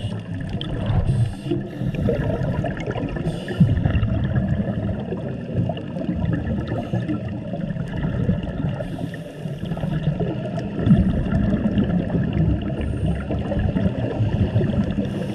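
Underwater sound recorded through a diving camera's housing: a steady, muffled water rumble with several short hissing bursts, typical of a scuba diver's regulator breathing and exhaled bubbles.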